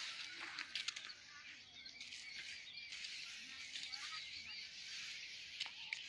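Small birds chirping and twittering in a dense, continuous chorus, with a few sharp clicks of footsteps and rustling in dry grass about a second in and again near the end.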